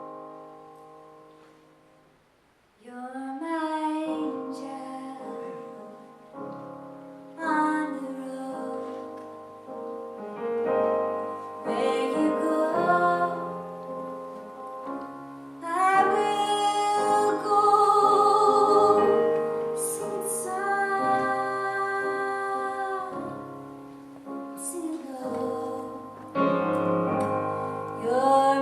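A woman singing with piano accompaniment. A piano chord rings and fades at the start, and her voice comes in about three seconds in over sustained chords.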